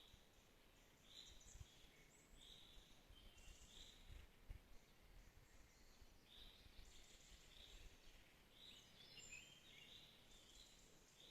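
Faint bird calls: a short high note repeated about once a second, with a busier run of twittering notes about nine seconds in, over a soft background hiss.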